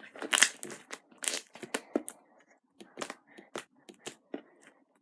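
Homemade slime being stretched and squished in the hands, giving irregular crackling pops and tearing sounds.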